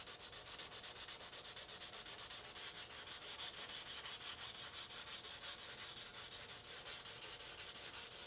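Used 320-grit sandpaper rubbed by hand along the edge of a plastic model's saucer in quick, even back-and-forth strokes, about five a second: wet-free hand sanding to smooth out a glue seam.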